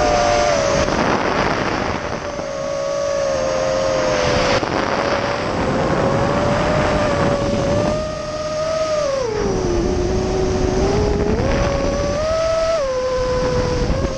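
Brushless motors and 5x4x4 propellers of a Vortex 250 Pro racing quadcopter on a 4S battery, whining as heard from its onboard camera. The pitch steps and glides with throttle, dips about nine seconds in and climbs again near the end, over a rushing hiss.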